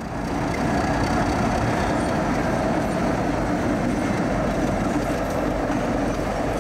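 Baldwin AS-616 diesel-electric locomotive pulling a freight train past, its diesel engine running steadily along with the rumble of the train on the rails.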